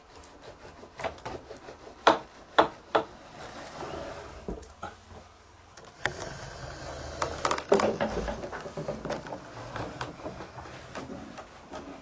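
Old hand-made wooden door latch and sliding wooden bolt being worked by hand: three sharp wooden knocks about two seconds in, then a few seconds of clattering and wood rubbing on wood.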